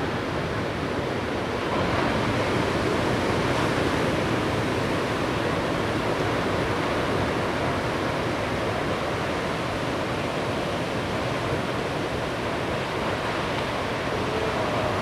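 Ocean surf breaking on the North Shore: a steady, even wash of waves, slightly louder about two seconds in.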